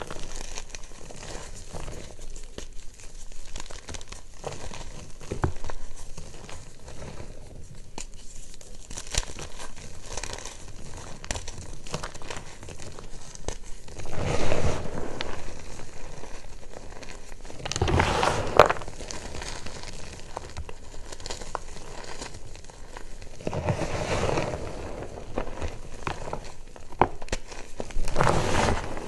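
Hands crushing and crumbling reformed gym chalk in a tub of chalk powder: continuous dry, gritty crunching and crackling of chalk lumps breaking and powder shifting, with four louder squeezes in the second half.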